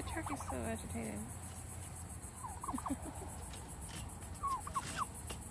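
Domestic turkey calling in three short bursts of quick, pitched notes that slide up and down, one at the start, one in the middle and one near the end.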